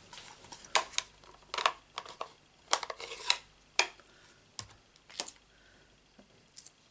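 Light plastic clicks and taps of a stamp ink pad and stamp being handled on a craft desk, about eight sharp knocks spread over several seconds with soft scuffing between them.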